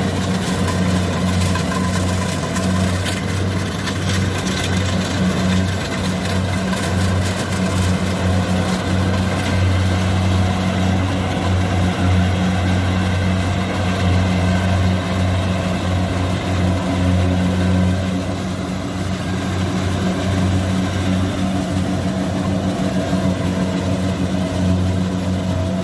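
Heavy diesel engine of rice-harvesting farm machinery running steadily, a deep even hum that holds throughout.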